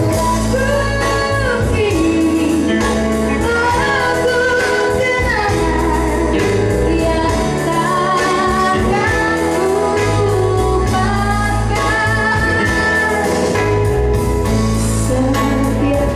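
A pop song playing, with a singer's melody over a steady beat and bass.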